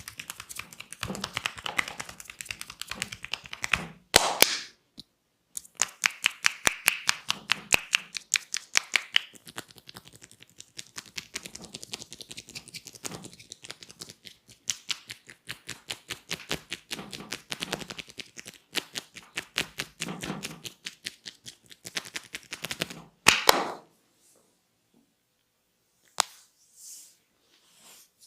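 Massage percussion: the masseur's hands tapping the body rapidly and evenly, many light strikes a second in long runs, with a louder, sharper burst about four seconds in and again near the end.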